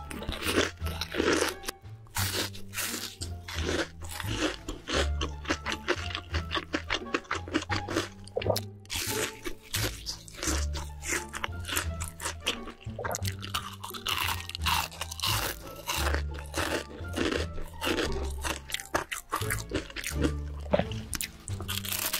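Close-miked eating: rapid, continuous crunching and chewing of crisp food. Background music with a bass line plays underneath.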